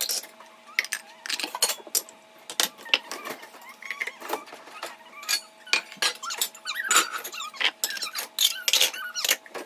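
Household items being handled: a string of irregular clicks, clinks and light knocks over a faint steady hum.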